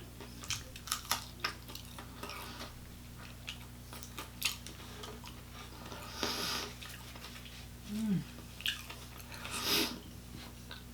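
Close-up eating sounds of crispy fried chicken wings: scattered crunches, clicks and taps of food and dishes being handled, with two longer crunchy bursts in the second half.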